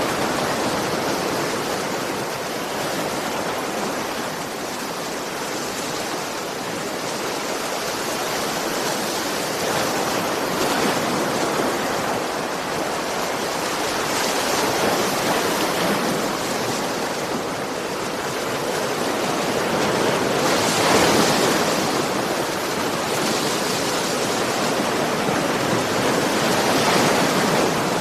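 Ocean surf: a continuous rush of waves on a shore, swelling as each wave breaks every five or six seconds and then easing.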